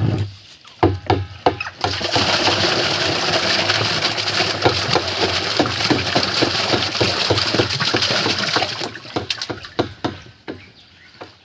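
Water splashing and sloshing: a few separate splashes, then several seconds of dense, continuous splashing full of quick slaps, thinning out to scattered splashes near the end.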